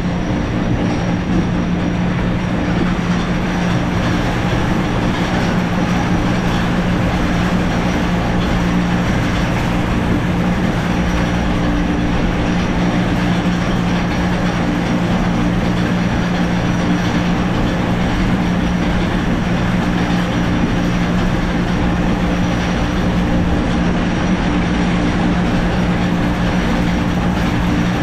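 Schwarzkopf Speed Racer coaster train climbing its electric spiral lift: a steady hum from the lift drive, with wheels rumbling on the steel track.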